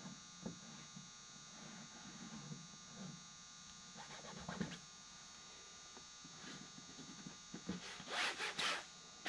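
Scratchy rubbing strokes on a fabric-covered aircraft wing as a reinforcing patch is worked and smoothed down by hand. Soft scattered strokes build to a run of louder, sharper scrapes near the end, over a steady electrical hum.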